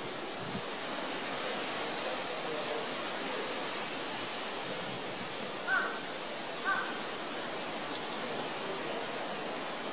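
Steady outdoor background hiss, with two short calls about a second apart near the middle.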